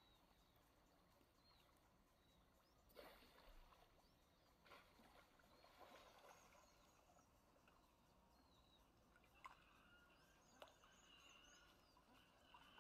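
Near silence: faint outdoor ambience with a few soft taps and faint, short high chirps.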